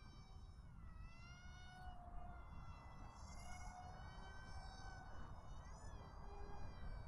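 Eachine Mini Wing Dragon RC plane's small electric motor and propeller whining faintly in flight, the pitch dipping and rising a few times with throttle changes.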